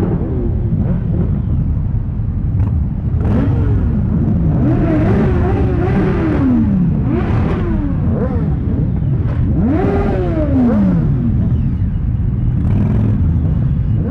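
A crowd of motorcycle engines running together in a steady rumble, with riders revving them over and over so the pitch climbs and falls. The longest rev is about ten seconds in.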